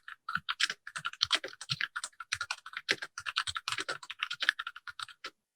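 Fast typing on a Keychron K6 mechanical keyboard set straight on the desk without a deskmat: a dense, irregular run of key clicks that stops abruptly near the end.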